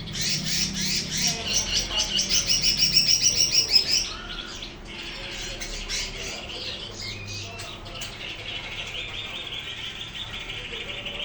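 Cucak ijo (green leafbird) singing: a loud, fast run of repeated high notes for about four seconds, then a softer, steady twittering trill.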